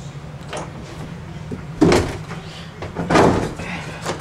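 Thumps of a house door being moved as someone passes through a doorway: a sharp knock about two seconds in and a longer bump about a second later, over a steady low hum.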